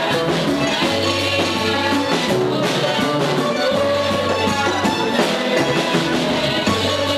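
Church choir singing a worship song over musical accompaniment with a steady line of held low bass notes.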